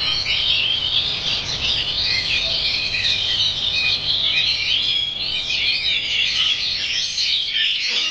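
Caged oriental magpie-robins (kacer) singing continuously, a dense overlapping tangle of quick chirps and whistles from several birds at once.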